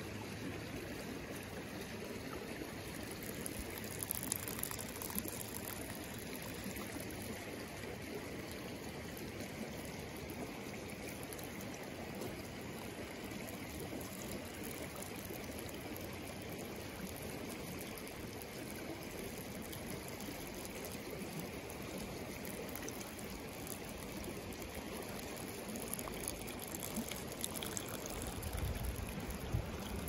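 Running water of a stream, a steady rushing and trickling. A low rumble comes in near the end.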